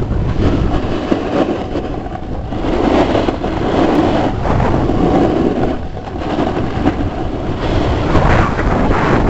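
A snowboard running and scraping over packed, groomed snow at speed, with wind buffeting the microphone; the rough rumble swells and eases every second or two.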